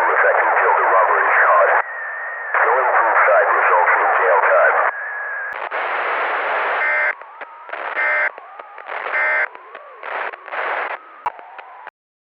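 Loud, distorted radio-band audio: crackling static with garbled sound for about five seconds. Then a quieter, choppier stretch broken by three short buzzy bursts about a second apart, and the sound cuts off suddenly near the end.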